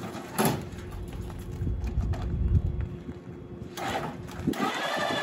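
Knocks and clattering from a vending machine being handled on an electric stair-climbing hand truck, over a low rumble. About four and a half seconds in, a steady electric motor whine starts: the hand truck's lift motor running.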